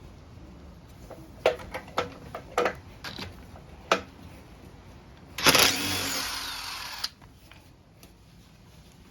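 Several sharp metal knocks and clicks of tools being handled, then a power tool runs for about a second and a half and cuts off suddenly; this is the loudest sound.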